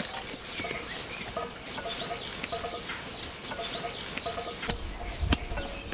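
Hens clucking in a run of short repeated notes, with small birds chirping now and then.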